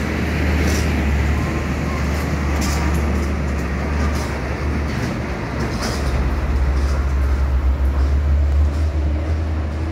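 Heavy diesel truck driving past close by, its engine a steady low drone that swells in the second half, with short clicks and rattles over it.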